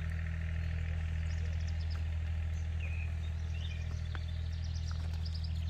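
Steady low hum of an engine running at an even idle, with small bird chirps over it.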